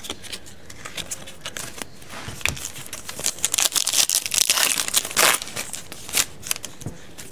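Foil wrapper of a 2016 Panini Phoenix football card pack being torn open by hand, crinkling and crackling, loudest and densest in the middle.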